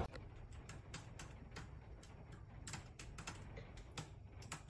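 Faint, irregular clicking and tapping at a desktop computer's keyboard and mouse, several light clicks a second, uneven in spacing.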